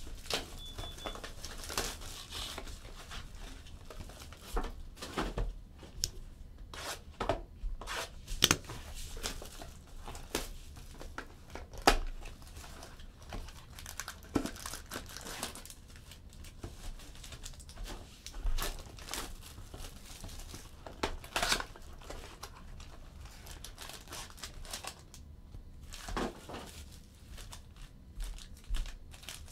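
Plastic shrink wrap being torn off a trading-card box and crumpled in the hands: irregular crinkling and tearing with sharp crackles scattered throughout.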